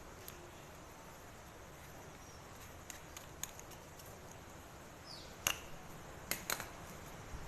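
A few short, sharp clicks and taps of hard plastic parts being handled: the inlet pipe socket of a pressure washer. The loudest click comes a little past halfway, followed soon after by a close pair, over a faint steady hiss.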